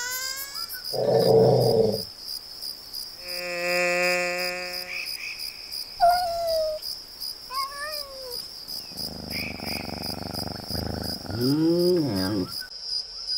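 Crickets chirping steadily through a night scene, with animal calls over them: a dog's growl about a second in, a long held howl around four seconds, then rising and falling cat meows and yowls toward the end.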